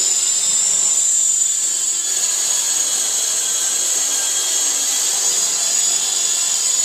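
WLToys V913 RC helicopter's electric motor and main rotor running in flight, its upper main shaft freshly replaced: a steady high whine that holds its pitch.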